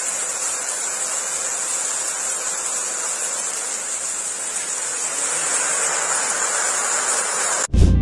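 Steady rushing of a jet of water gushing from a hole in a tree trunk, over a constant high buzz of forest insects. The sound cuts off sharply near the end and music takes over.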